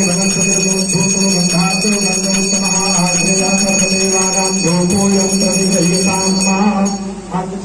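Puja hand bell (ghanti) rung continuously over a man's chanting. The ringing stops about seven seconds in.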